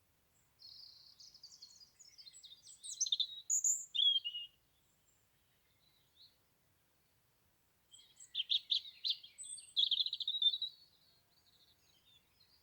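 European robin singing: two high, varied warbling phrases with trills, each a few seconds long, separated by a pause of about three seconds.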